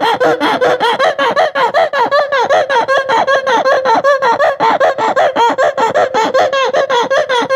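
A rapid run of short squeaks, about five a second and bending in pitch: the squeak of a cloth wiping a mirror, as a sound effect.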